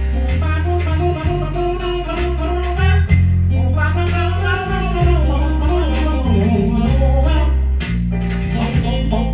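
Blues song with guitar, bass and singing, played from an LP record on a turntable through a hi-fi system with large monitor speakers.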